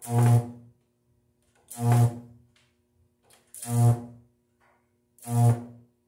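High-voltage electric arcs, about 4.2 kV, from two microwave oven transformers in antiparallel feeding six capacitors, drawn off a terminal with an insulated rod. There are four harsh, loud buzzing bursts, each about half a second long and spaced under two seconds apart, each with a deep buzz and a hiss.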